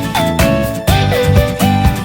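Upbeat background music with a steady drum beat and a bending, gliding melody line.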